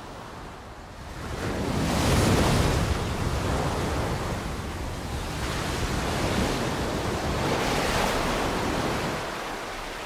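Ocean waves breaking on a sandy beach. The surf swells loud about two seconds in and again around seven to eight seconds, then eases near the end.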